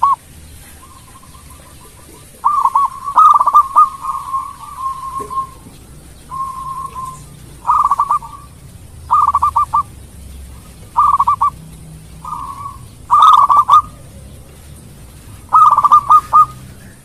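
Zebra dove (local perkutut) singing: a run of short cooing phrases, each a quick trill of notes, repeated every second or two after a pause of about two seconds at the start.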